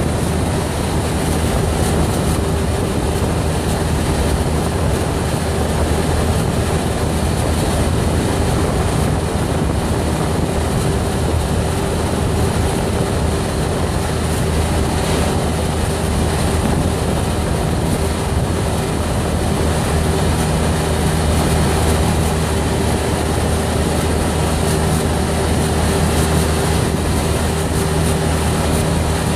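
Golf cart driving at a steady cruising speed: a constant low motor hum under a steady rush of wind and road noise. A car passes the other way about halfway through.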